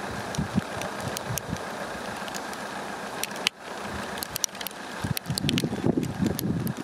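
Hail shower: many sharp ticks of hailstones over a steady hiss. Gusts of wind buffet the microphone from about five seconds in.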